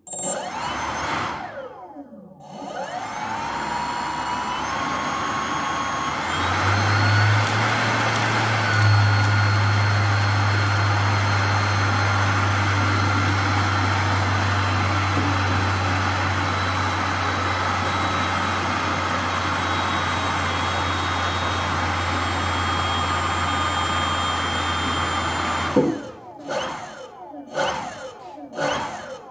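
3D-printed BLDC-motor jet turbine (electric ducted fan driven by an ESC) spinning up with a rising whine, dropping out briefly about two seconds in, then spinning up again to run at a steady high speed with a whirring rush of air. Near the end it cuts off suddenly, followed by several short spin-ups.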